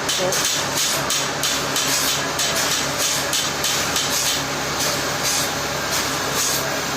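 Machinery running with a steady low hum and an even, repeating beat of high-pitched clatter about three times a second.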